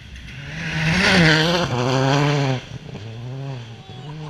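Rally car engine revving hard as the car approaches along the gravel forest stage. The pitch rises and falls through gear changes, and the engine drops off sharply as the driver lifts about two and a half seconds in, then picks up again more quietly.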